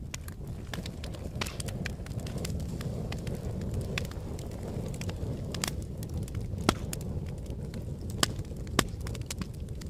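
Wood fire crackling, with scattered sharp pops over a steady low rumble. The loudest pops come in the second half.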